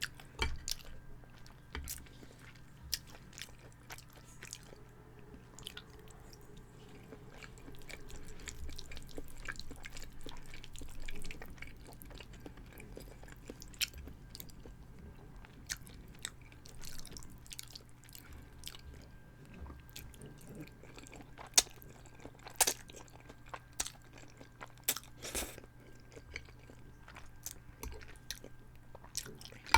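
Close-miked chewing and mouth sounds of someone eating chicken parmesan with spaghetti: many short wet smacks and clicks, with a few louder ones past the middle.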